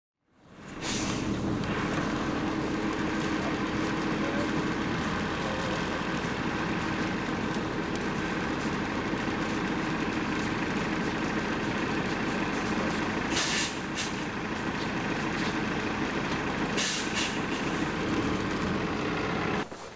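A large vehicle's engine idling steadily, with two short hisses of released air, one about two-thirds of the way in and another a few seconds later.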